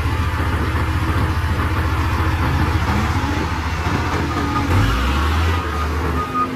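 Heavy diesel engine running with a fast, even low throb that shifts in pitch about five seconds in, as the engine's load or speed changes.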